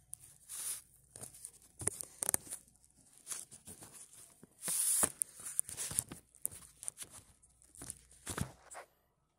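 Handling noise from a phone being held and moved by hand: irregular scraping and rustling as fingers rub over it, with a louder scrape about halfway through.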